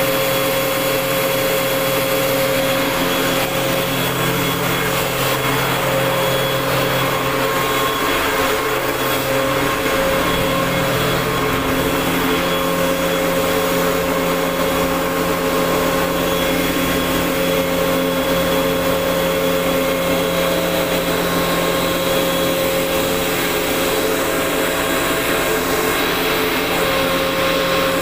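Industrial air compressor running steadily: a loud, even machine noise with a few steady whining tones. The lower hum drops away about ten seconds in.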